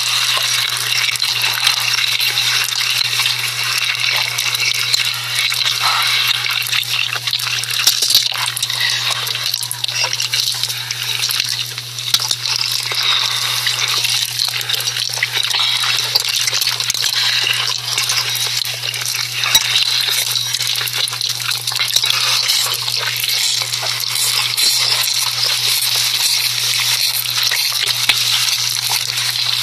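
Steady watery, crackling hiss of noodles cooking and being stirred, as in ASMR cooking audio, with a constant low hum underneath.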